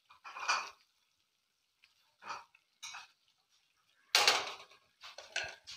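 Silicone spatula scraping and knocking against a wok of thick, oily masala in several short bursts, the loudest about four seconds in.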